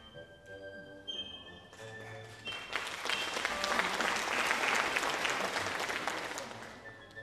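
Audience applause that swells up about two and a half seconds in and dies away near the end, over orchestral ballet music with strings.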